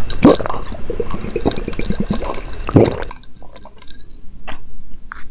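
A person drinking from a glass close to the microphone: wet gulps and slurps, dense for about three seconds, then thinning out to a few quieter swallows.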